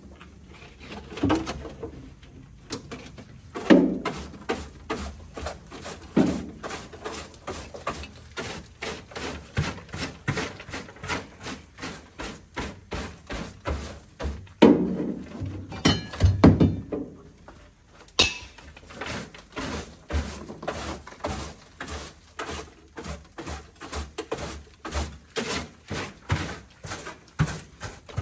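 Rapid, regular knocking strokes, about two a second, with a few heavier thunks among them.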